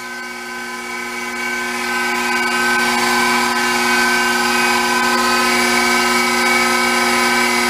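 Small lathe running, driven by belt from a brushed DC treadmill motor with its cooling fan removed. It makes a steady whine of several fixed tones that grows louder over the first two seconds or so and then holds steady.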